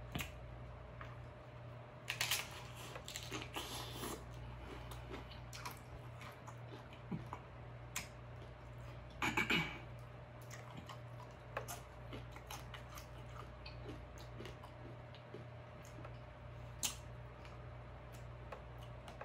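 Close-up eating of shrimp ceviche on crisp corn tostadas: crunching bites, wet chewing and lip smacking, with louder crunches about two seconds in, around nine seconds and once near the end. A steady low hum runs underneath.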